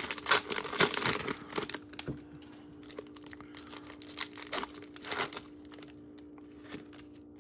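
Cellophane wrapper of a Panini Prizm Draft Picks football card cello pack crinkling and tearing as it is ripped open. The crackling is dense for the first two seconds, then comes in scattered bursts as the cards are pulled out, over a faint steady hum.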